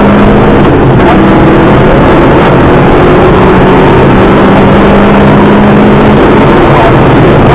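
Subaru Impreza rally car's engine running hard on a rally stage, its note held fairly steady with a short break about a second in, over a dense wash of mechanical and road noise.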